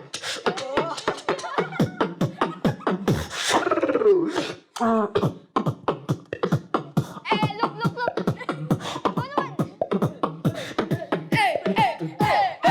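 Solo human beatboxing: a fast, steady stream of mouth-made drum hits and clicks with sliding pitched vocal notes woven among them, including a long falling slide about four seconds in.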